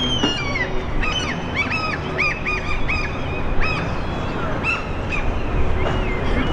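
A bird calling over and over in short, high, honking calls, about two or three a second, over a steady background hum.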